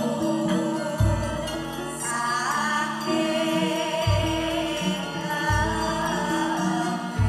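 A choir of female Javanese singers (sinden) singing together with gamelan accompaniment: sustained metallophone notes under the voices and deep low strokes a few times, about 1, 4, 5.5 and 7 seconds in.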